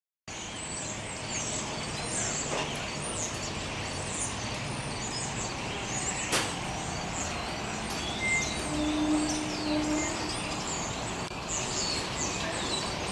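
Birds chirping in short, repeated high calls over a steady low background hum, with one sharp click about six seconds in and a brief low steady tone around nine seconds.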